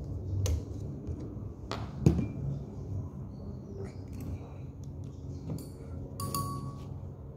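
A few light clicks and knocks from handling crocodile-clip leads and electrodes and moving a glass beaker on the bench, the sharpest knock about two seconds in.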